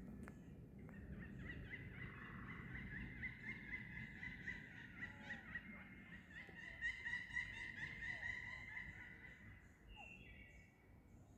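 Birds calling together: a busy run of rapid, overlapping high notes that fades out near the end.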